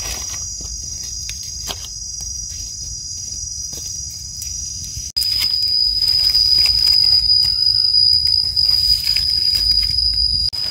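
Insects in the forest making a steady, high-pitched drone. It gets louder and slightly lower in pitch after an abrupt cut about five seconds in, with light rustling of dry leaves as the mushroom is handled.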